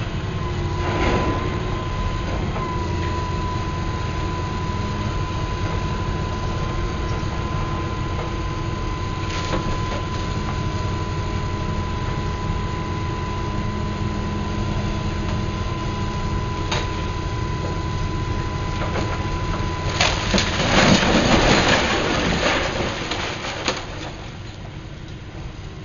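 Demolition excavator running steadily with a thin steady high tone, its grab cracking and knocking at brickwork now and then. About twenty seconds in, a section of the brick wall comes down in a loud crash of falling masonry and rubble lasting a few seconds, after which the engine sound is quieter.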